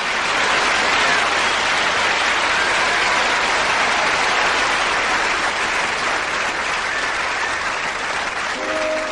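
Audience applauding steadily through a live concert recording; piano chords come in near the end as the song's introduction begins.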